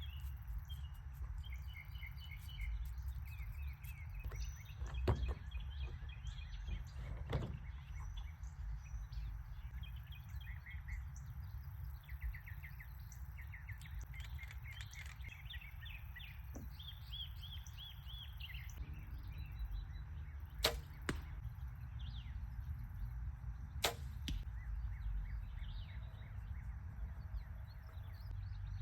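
Small birds chirping in repeated short high notes and trills over a steady low rumble of wind on the microphone, with a few sharp clicks or knocks.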